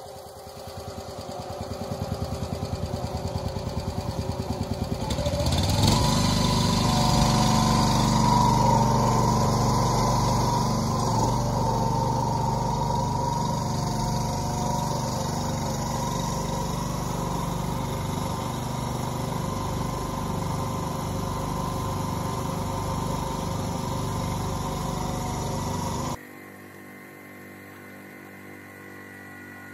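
Truck-mounted forklift's engine running at idle, then revving up about six seconds in and running steadily under load as it pushes a trailer on dolly wheels. The sound drops off abruptly near the end.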